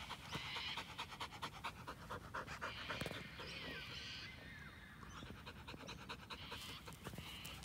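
An Australian Kelpie panting in quick, regular breaths, lighter over the second half.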